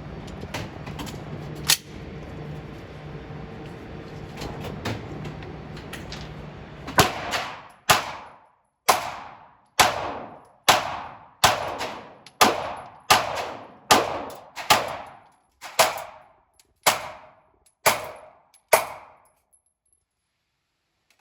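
A semi-automatic gun fired about fourteen times in steady succession, roughly one shot a second, starting about a third of the way in. Before the shooting there is a steady low hum and one sharp click.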